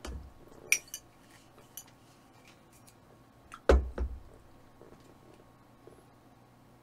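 Tableware knocking and clinking on a table: a light clink about a second in and a heavier knock, followed by a second smaller one, near the middle.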